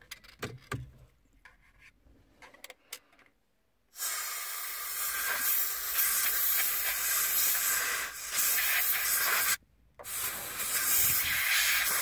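Canned compressed air hissing out of an extension straw into the indicator stalk's switch housing, blowing off and drying the contact cleaner inside. After a few quiet seconds with small handling clicks come two long steady blasts: the first starts about four seconds in and lasts over five seconds, the second follows after a brief break near ten seconds.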